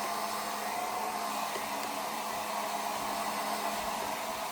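Xiaomi H101 compact hair dryer running steadily on its cold setting: an even rush of air with a constant low hum.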